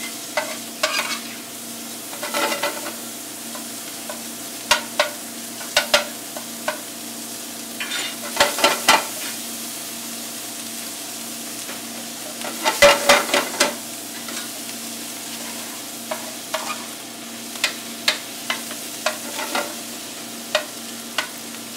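Minced applewood smoked bacon sizzling in a metal sauté pan over a gas burner, its fat rendering as it crisps. A metal spoon stirs it, scraping and clinking against the pan in irregular clatters, busiest about 8 to 9 seconds in and again around 13 seconds.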